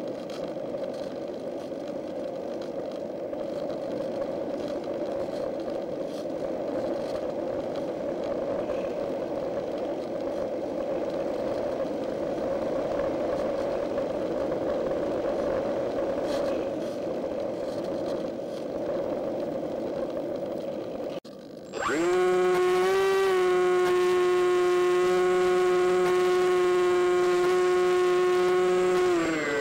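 Onboard sound of an RC model plane in flight: a steady whir of the electric motor and propeller mixed with air noise. After a brief dropout about 21 s in, this gives way to a loud, steady, high motor whine that glides down in pitch near the end as the throttle eases.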